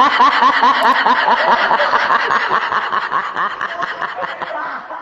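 Canned laughter sound effect of a high-pitched, rapid snickering laugh, repeating several times a second, that fades out near the end.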